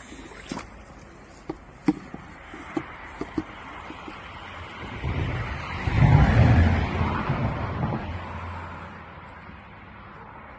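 A few clicks and knocks of handling, then the Bestway rechargeable underwater pool vacuum running in the water: a rush of water with a low motor hum swells about halfway through and dies away near the end.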